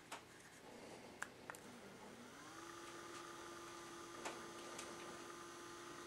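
A-OK AM25 lithium-ion tubular shade motor starting about two seconds in: a faint hum that rises briefly in pitch as it spins up, then holds a steady whine. A couple of faint clicks come just before it.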